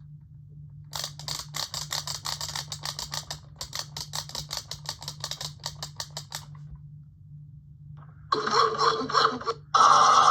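Rapid clicking, several clicks a second, for about five seconds, then a Power Rangers Beast Hunters gorilla zord toy's electronic sound effects playing loudly through its small speaker near the end.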